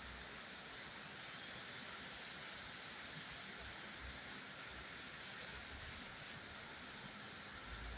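Steady rain falling: an even, soft hiss with faint scattered drop ticks.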